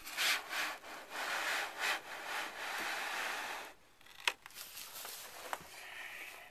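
Hard objects rubbing and scraping as they are handled, in uneven surges for the first few seconds, then two sharp clicks about a second apart.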